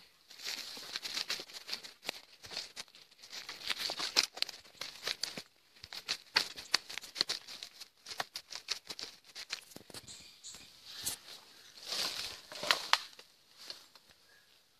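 Footsteps crunching through dry leaf litter and undergrowth, with leaves and stems rustling and twigs crackling in quick, uneven patches; it fades out near the end.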